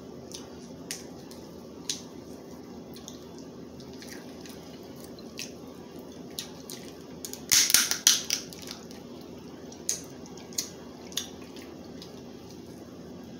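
Crab leg shells being cracked and snapped apart by hand: scattered small clicks, with a burst of loud cracking about halfway through.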